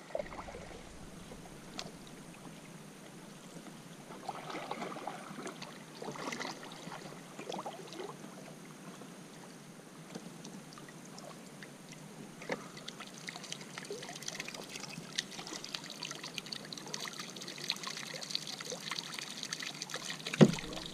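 Kayak paddle strokes in calm water, with water dripping and trickling off the blade. In the last several seconds liquid pours from a can into the river, and a single sharp knock, the loudest sound, comes just before the end.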